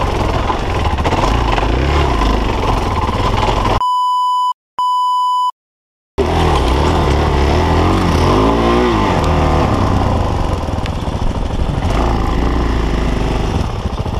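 Single-cylinder enduro motorcycle engine running while the bike is ridden over rough dirt, revving up and down. A few seconds in, the engine sound drops out for about two seconds, and two short electronic beeps sound in the gap before the engine returns.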